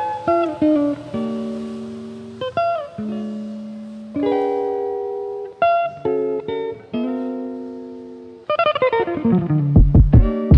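Background music: plucked guitar chords that ring and fade, one after another. Near the end a quick run of falling notes leads into a drum beat with a deep kick.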